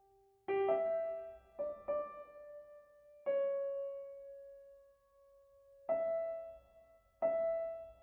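Background music: slow, gentle solo piano notes played one or two at a time, each ringing and fading.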